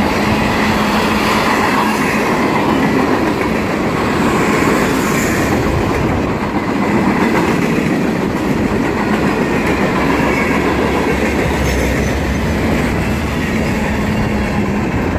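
Freight train of tank cars and covered hoppers rolling past close by at about 40 mph: a loud, steady rumble and rattle of steel wheels on the rail.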